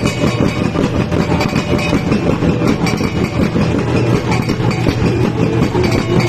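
Bossed gongs beaten in a fast, unbroken rhythm, their low ringing tones held beneath the strokes, as live accompaniment to a tribal dance.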